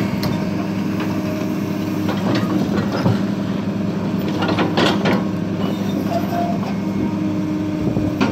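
Cat 318CL hydraulic excavator's diesel engine running steadily as it digs, with the bucket scraping and knocking against the trench soil a few times, loudest about five seconds in.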